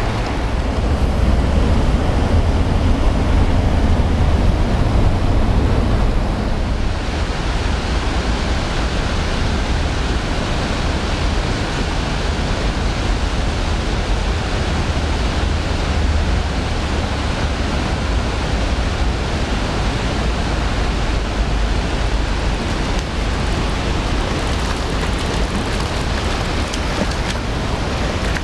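Steady rush of a mountain river's water flowing over stones, under a low rumble of wind on the camera microphone; the rush grows brighter and hissier about six seconds in.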